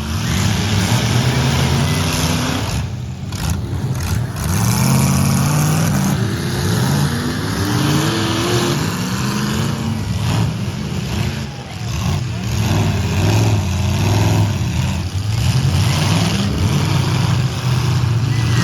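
Several demolition derby cars' engines running loud and revving, their pitch rising and falling again and again, with more than one engine at once.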